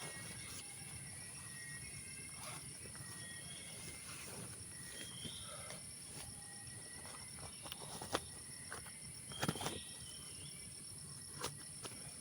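Forest ambience: a steady high-pitched insect drone, with scattered short, faint bird calls and a few sharp clicks.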